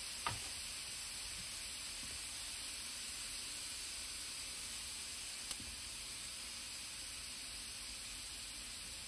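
Raw ground beef sizzling steadily in a hot cast iron skillet as it starts to brown, with a couple of faint ticks.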